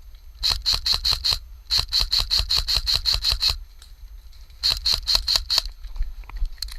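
Airsoft gun firing three quick strings of sharp snapping shots, about five a second: a short string, a longer one of about a dozen, then a short one again.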